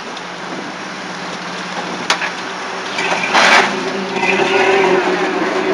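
Toyota pickup rock crawler's engine running on the rocks, getting louder from about three seconds in as the throttle is applied. There is a sharp knock about two seconds in and a short loud burst of noise around three and a half seconds.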